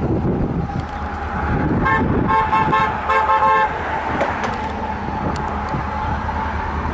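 Locomotive horn sounding a quick series of about five short blasts, about two seconds in. It is heard over wind rumble on the microphone and a steady high-pitched squeal.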